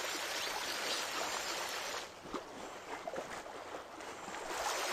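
Shallow creek running over a stony gravel riffle: a steady rush of water that eases a little about two seconds in and swells again near the end.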